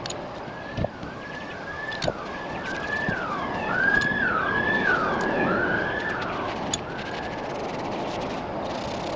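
Siren wailing in quick rising-and-falling sweeps, getting louder towards the middle and then fading away, with a few sharp clicks and knocks underneath.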